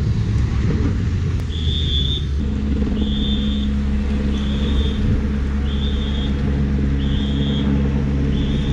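Motor vehicle engines running steadily as race motorcycles pass with the cycling peloton, with a short high beep repeating about once a second from about one and a half seconds in.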